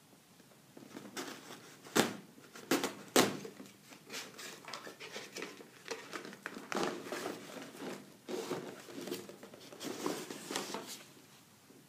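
Corrugated cardboard shipping box handled and opened by hand: irregular scraping and rustling of cardboard, with sharp knocks about two and three seconds in.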